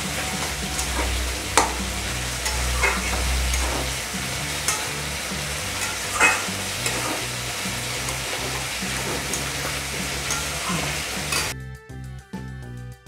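Cauliflower and potato in spice paste sizzling in oil in a metal kadai, with a metal spatula stirring and scraping it and now and then knocking the pan: the masala being fried down (kashano) until done. Near the end the sizzling stops and a short piece of music takes over.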